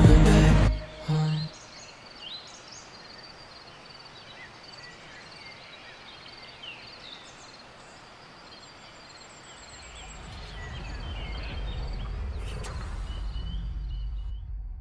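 Outdoor ambience with birds chirping and calling over a faint steady background; a music track cuts off just under a second in, and from about ten seconds in a low rumble builds up beneath the birdsong.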